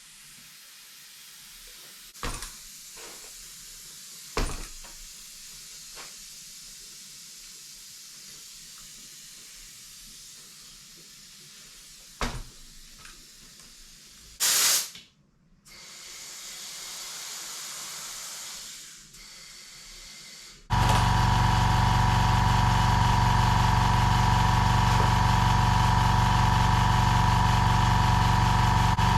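Clicks and short bursts of hissing air, typical of compressed air going into a tyre, with one loud blast about halfway. Then, about two-thirds of the way in, a loud steady machine hum with a fixed pitch starts and keeps running.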